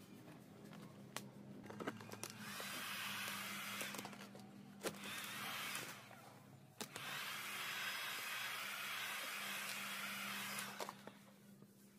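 Heat gun blowing in two steady spells of about three to four seconds each, switching on and off abruptly, warming vinyl wrap film so it can be stretched over a curved panel. A few sharp clicks come between and during the spells.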